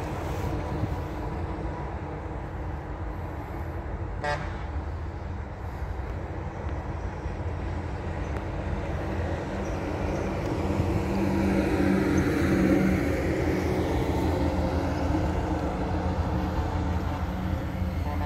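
Steady low rumble of distant road traffic, with a brief horn beep about four seconds in and a longer horn held for a couple of seconds just past the middle.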